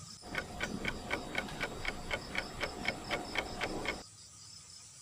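Steady mechanical ticking, about four clicks a second, that stops abruptly near the end. A faint high insect trill runs underneath.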